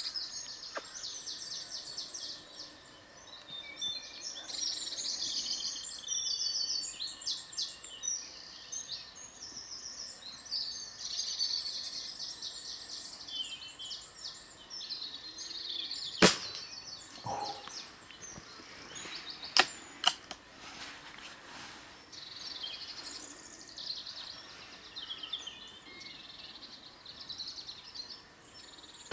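Songbirds singing in a continuous chorus of chirps and trills. About halfway there is one sharp loud crack, the loudest sound, and a few seconds later two quick sharp clicks close together.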